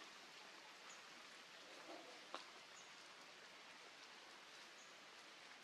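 Near silence: a faint steady hiss, with one soft click a little over two seconds in.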